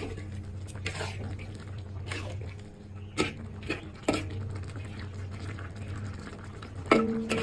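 Chicken igado simmering in sauce in a metal wok, with bubbling, a few sharp pops and clicks, and a steady hum underneath. Near the end a metal spatula strikes the wok with a ringing clang, the loudest sound.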